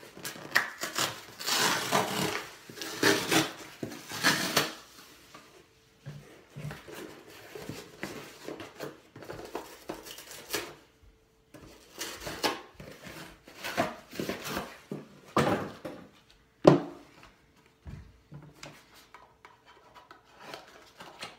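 A mini tripod's packaging being handled and opened by hand: irregular scraping, rubbing and rustling in bursts, with a sharp click about two-thirds of the way through.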